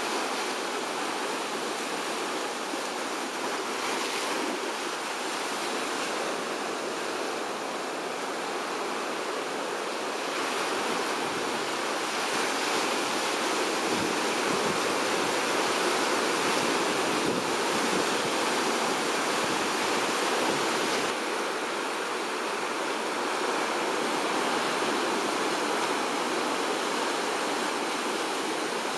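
Ocean surf washing on a rocky lava shore: a steady rush of water noise that swells slightly in the middle.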